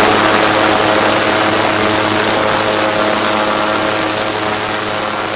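Airboat's engine and air propeller running steadily under way, a low steady hum over a broad rushing noise, slowly getting quieter toward the end.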